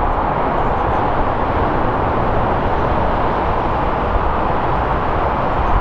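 Jet noise from a Boeing 777-300ER's twin GE90 engines at approach power as the airliner flares just above the runway to land. A steady, even rush with a low rumble underneath.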